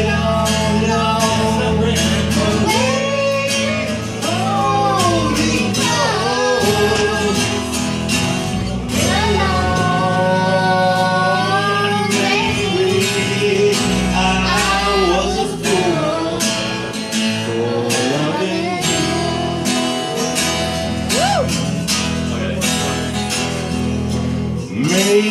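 Country ballad music: guitar accompaniment under a lead melody of held, sliding notes.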